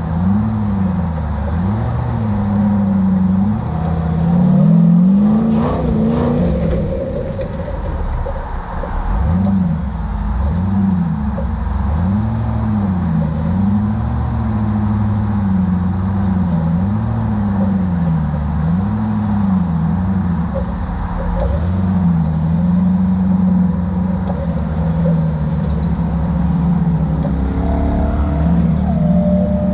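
Off-road rock buggy's engine heard from inside its open tube cage, revving up and dropping back over and over as the throttle is worked, about once a second. It holds steadier for a few seconds past the middle, then climbs again near the end.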